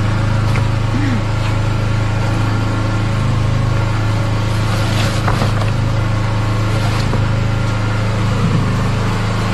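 A steady low motor hum, with a short rustle or clatter about five seconds in and a few faint brief voices.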